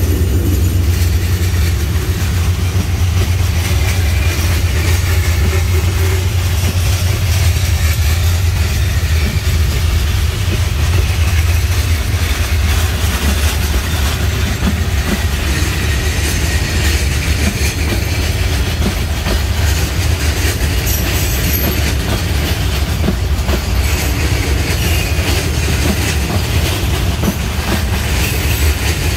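Freight train's open steel wagons rolling past close by: a steady heavy low rumble from the wheels on the rails, with scattered clicks as they pass over the rail joints.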